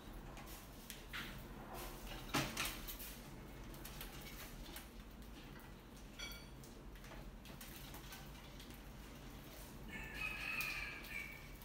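Rats scrabbling over a wire-mesh lid, with scattered scratches and clicks, a brief squeak about six seconds in and a longer squeal near the end.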